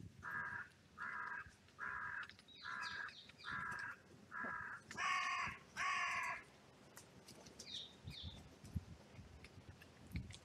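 A crow cawing in a steady series of about eight harsh caws, evenly spaced, the last two louder and fuller. After them only faint higher calls from other birds.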